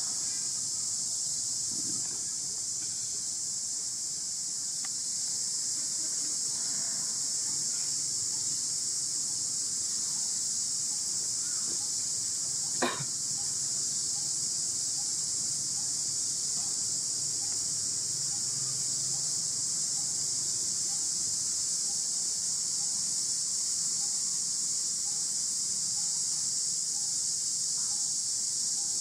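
Steady, high-pitched chorus of insects, with one sharp click about thirteen seconds in.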